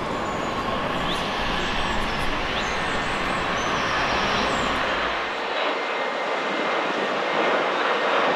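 Jet aircraft engines running: a steady rushing noise with a faint whine in it, and small birds chirping high above it. The low rumble drops out suddenly about two-thirds of the way through.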